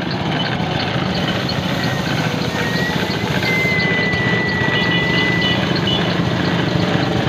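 An engine idling steadily, with small regular ticks over its low hum and a thin high whistle for about three seconds in the middle.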